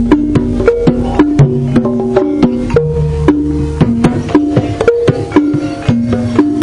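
Live jaranan gamelan music: quick, steady drum strokes under a melody of held notes that steps from pitch to pitch about twice a second, with low gong-like rumbles underneath.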